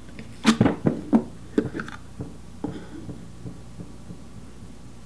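Hard plastic clicks and knocks as a Glock 26 magazine is pulled out of a snug Kydex magazine holster and handled on a wooden tabletop. The loudest knocks come in the first second or so, then fainter taps die away by about four seconds in.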